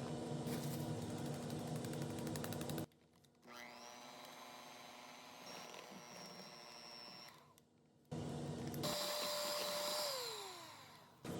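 Electric kitchen mixer motor running steadily in short cut-together clips, winding down with a falling pitch near the end as it is switched off.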